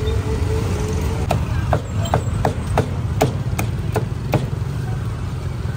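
A meat cleaver chopping roasted meat on a block: about nine sharp chops at a steady two to three a second, starting about a second in and stopping after about four seconds, each with a brief ring from the blade. Steady low traffic and engine rumble runs underneath.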